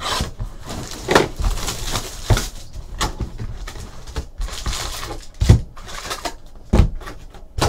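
A cardboard hobby box of trading cards being opened and its foil packs pulled out and set down on a table: rustling and crinkling broken by several knocks, the loudest about five and a half and nearly seven seconds in.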